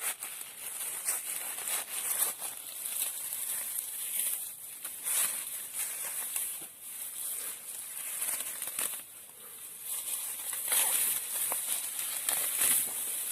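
Dry grass, leaves and twigs rustling and crackling in irregular bursts as they are handled or trodden on.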